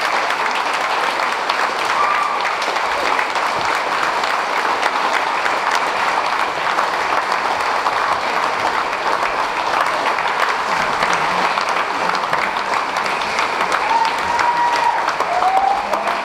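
Theatre audience applauding steadily, a dense wash of many hands clapping, with a few short calls from the crowd about two seconds in and again near the end.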